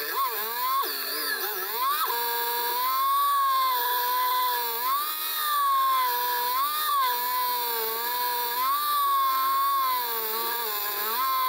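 Motorcycle engine running under way, its whining note rising and falling again and again with the throttle. There are quick dips and sweeps in pitch in the first two seconds.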